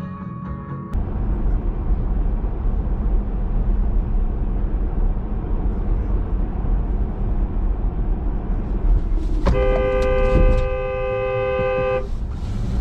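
Steady low road and engine rumble of a car driving. Near the end a car horn blows one long two-tone blast, held for about two and a half seconds.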